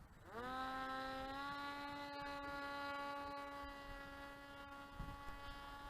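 Brushless electric motor and propeller of a flying-wing model spinning up: a whine that rises quickly about a third of a second in, steps up slightly a second later, then holds a steady pitch.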